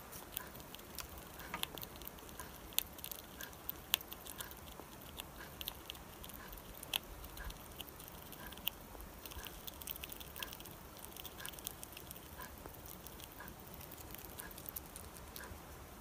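American red squirrel chewing a nut held in its forepaws, close up: a quick, irregular run of small sharp clicks as its teeth work the nut.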